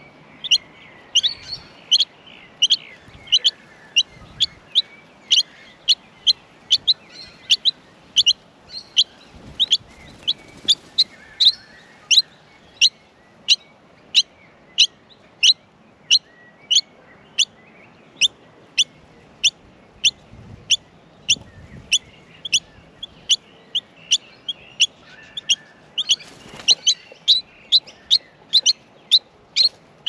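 Nestling songbirds calling from the nest with short, sharp chirps repeated at an even pace, about two a second. A brief, busier flurry of calls comes near the end.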